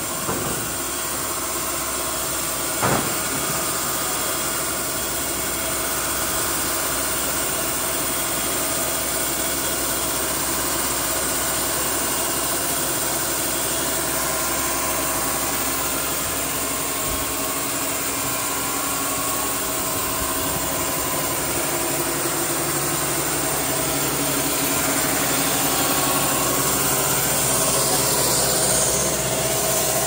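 Baker Model 3650E band sawmill running with a steady mechanical drone, with a short sharp knock about three seconds in.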